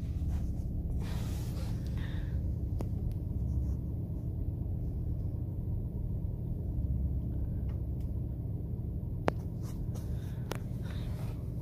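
Car's engine and road rumble heard from inside the closed cabin as it rolls slowly along, a steady low rumble with a few short clicks, the sharpest about nine seconds in.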